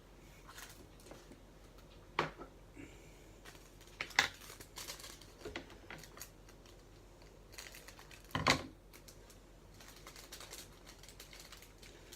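Small plastic bags of diamond painting drills being handled: crinkling and rustling, with a few sharp clicks and taps, the loudest about two, four and eight and a half seconds in.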